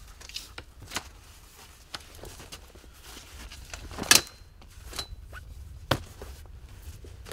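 Scattered clicks and knocks of camp gear being handled. The loudest is a sharp clack about four seconds in, followed by a brief high metallic ring; another sharp knock comes about six seconds in.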